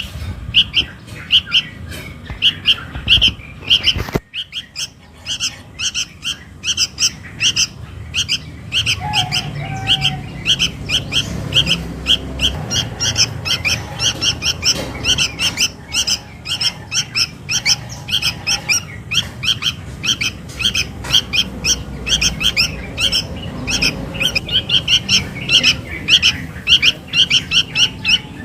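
Juvenile sooty-headed bulbul begging calls: short, shrill chirps repeated a few times a second without pause, a young bird calling for its parent. There is a brief break about four seconds in.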